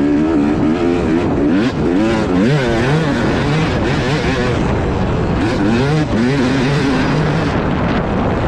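Yamaha motocross bike engine running hard, its pitch rising and falling again and again as the throttle is opened and rolled off through the track's jumps and corners.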